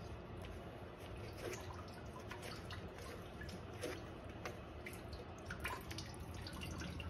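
Engine coolant trickling and dripping out of the 2001 Jeep Cherokee's radiator drain as the radiator is drained. It sounds as faint, irregular drips and small splashes.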